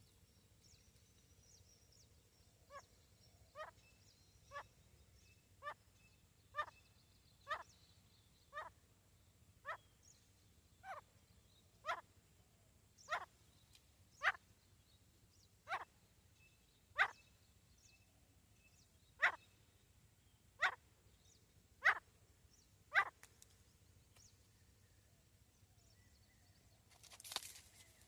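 Female grey francolin (teetar) calling: a series of about eighteen short, sharp notes, one roughly every second, each a quick sweep in pitch, growing louder as the series goes on. A brief rustle near the end.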